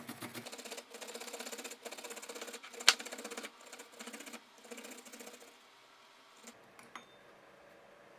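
Fresh ginger root being grated on a small stainless steel hand grater: quick rasping strokes, several a second, with one sharp click about three seconds in. The grating stops after about five and a half seconds, leaving a few light taps.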